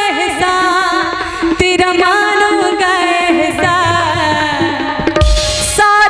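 Live bhajan music: a drawn-out sung devotional melody over sustained instrumental accompaniment and tabla. About five seconds in, a brief loud noisy crash cuts across the music.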